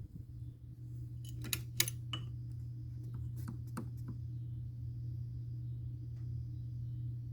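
Steady low hum from a radio receiver between broadcasts, with a cluster of sharp clicks about two seconds in and a couple more near four seconds.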